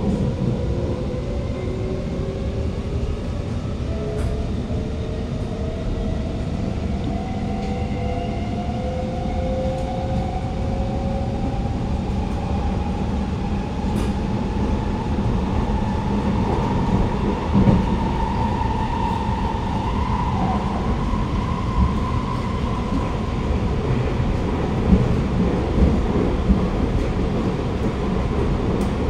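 Alstom Movia R151 metro train heard from inside the carriage, running with a steady rumble. Over it, a whine from the traction motors climbs slowly in pitch for about twenty seconds as the train gains speed, then fades. A few light knocks come in the second half.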